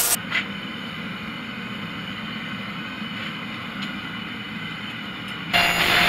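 Forge burner running with a steady low hum while the billet heats. About five and a half seconds in, a hydraulic forging press's pump motor cuts in much louder, with a hissing whine.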